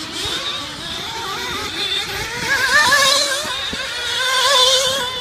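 RC truggy's motor revving on a dirt track, its pitch rising and falling with the throttle, loudest twice, about three and about four and a half seconds in.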